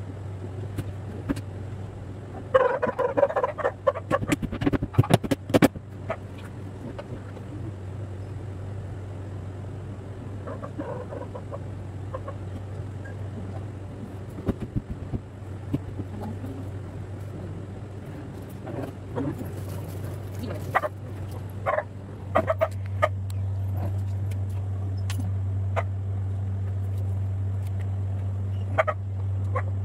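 Knocks and taps of particleboard cabinet panels being fitted together by hand, in a cluster about three to six seconds in and again near the end, over a steady low hum that grows louder about two-thirds of the way through. A short pitched call sounds about three seconds in.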